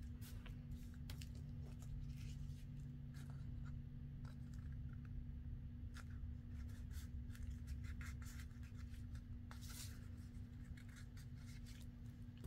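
Paper rustling and crinkling as hands fold and press small paper flaps onto a paper coin envelope, with scattered light taps and clicks and a longer rustle about ten seconds in.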